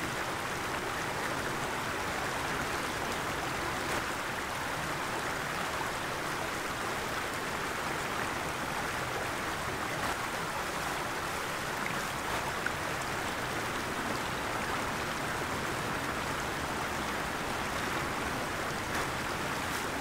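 Small woodland stream running with a steady rush of water, broken by a few faint clicks of twigs and dead leaves being handled.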